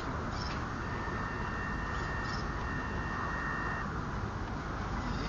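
Steady high-pitched whine from a radio-controlled rock crawler's electric motor and speed controller, straining with the truck held against a rock, stopping about four seconds in. Wind noise on the microphone underneath.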